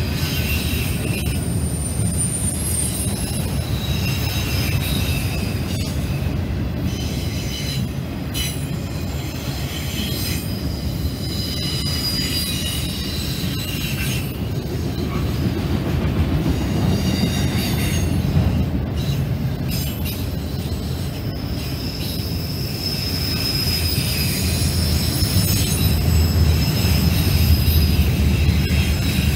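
Autorack cars of a freight train rolling past: a steady rumble of steel wheels on rail, with high-pitched wheel squeals coming and going.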